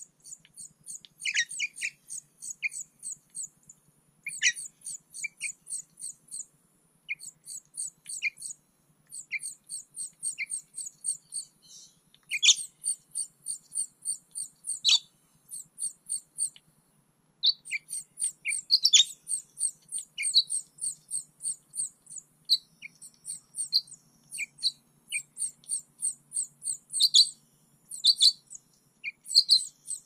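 Songbird nestling begging at the nest: rapid runs of short, high chirps, about six a second, broken by short pauses, with a few louder calls mixed in. A faint steady low hum lies under it.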